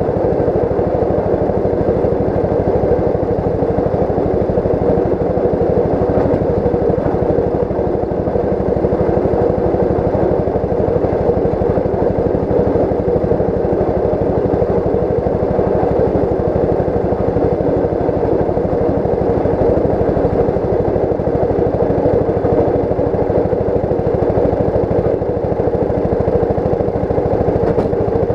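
Railroad motor car (railspeeder) running steadily down the track: a constant small-engine drone mixed with the rumble of its steel wheels on the rails.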